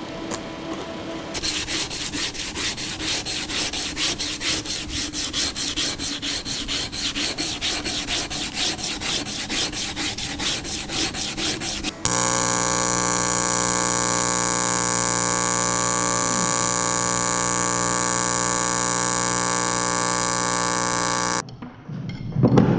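Rhythmic rasping strokes, about four a second, for roughly the first half. Then a sudden change to the steady, even buzz of a TIG welding arc on the sheet-metal cone, which cuts off abruptly near the end and is followed by a few handling knocks.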